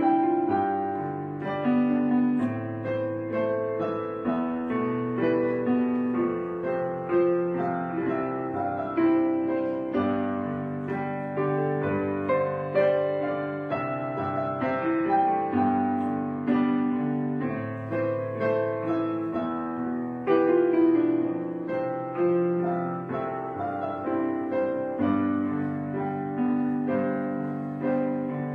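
Piano music: notes and chords struck one after another at a steady, unhurried pace, each fading away after it sounds.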